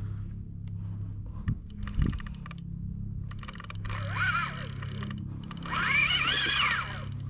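Fishing reel working against a heavy fish on the line: a short burst of fast clicking about two seconds in, then two whining buzzes that rise and fall in pitch, one near the middle and a longer, louder one near the end, as line runs through the reel. Two dull knocks just before the clicking, over a steady low hum.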